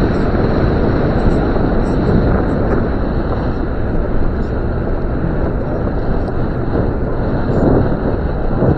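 Land Rover Discovery 2 driving along a dirt forest road: a loud, steady mix of engine and tyre noise on the gravel surface, with faint scattered ticks.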